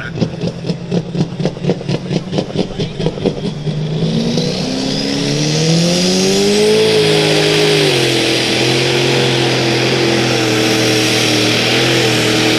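Super stock pulling tractor's turbocharged diesel engine, pulsing at idle, then about four seconds in revving up with a rising pitch and holding at high revs under load as the tractor pulls.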